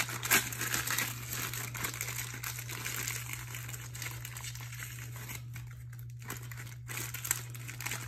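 Plastic or paper wrapping crinkling and crumpling in the hands, with irregular rustling throughout and the loudest crackles about half a second in, over a steady low hum.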